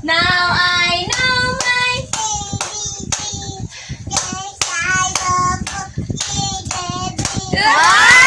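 Singing over steady rhythmic hand clapping, about two to three claps a second. Near the end a voice slides upward into a long held call.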